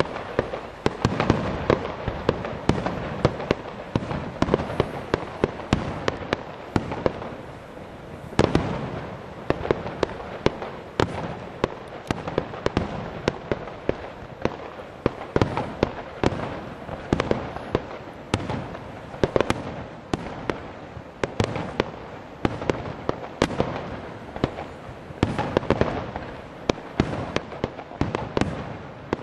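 Fireworks display: aerial shells bursting one after another in a dense, unbroken barrage of sharp bangs over constant crackling.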